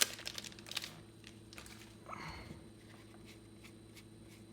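Faint crinkles and clicks of a foil booster-pack wrapper and trading cards being handled, with a short soft rustle about two seconds in, over a steady faint room hum.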